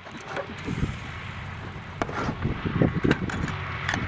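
Wind buffeting the microphone in uneven low gusts, with a few sharp clinks of a metal cook pot and its lid being handled.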